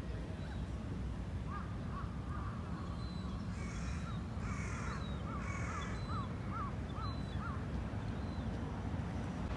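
Crows cawing, three harsh calls about a second apart in the middle, over a run of short, quick chirps from a bird, with a steady low rumble underneath.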